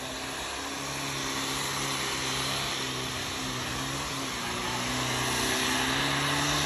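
Off-road 4x4 vehicle's engine running at a fairly steady speed, its pitch wavering slightly, over a continuous broad hiss, growing a little louder toward the end.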